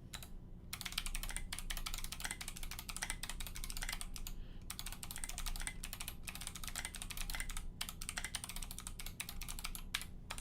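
Fast typing on a custom KBD66 mechanical keyboard with clicky Kailh Box Navy switches, a brass plate and SA keycaps: a dense run of sharp key clicks with a few brief pauses, stopping just before the end.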